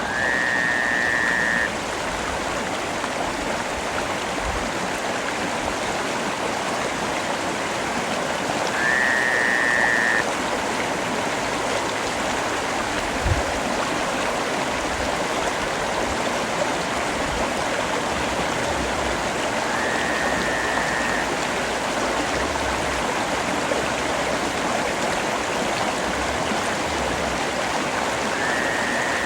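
Steady, even rain. A short high call sounds four times, about every nine seconds, and there is a single low thump about 13 seconds in.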